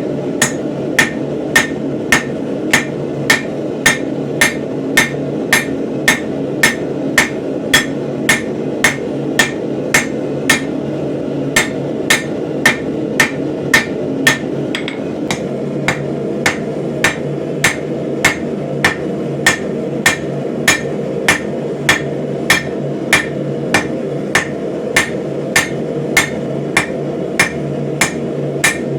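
Hand hammer forging a steel axe head on an anvil: steady blows at just under two a second, each with a short metallic ring, broken by a brief pause about halfway. A steady low rushing noise runs underneath.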